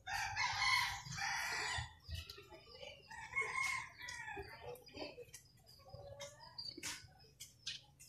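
A rooster crowing once at the start, about two seconds long in two parts, then softer, shorter clucking calls from chickens, with a few light clicks near the end.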